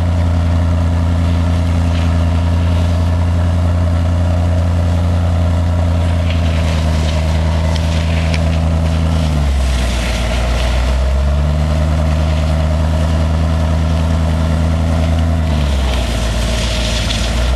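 Range Rover V8 engine running with a steady low drone while towing a skier. The engine note drops twice, about nine and a half seconds in and again near the end, then picks back up after a couple of seconds.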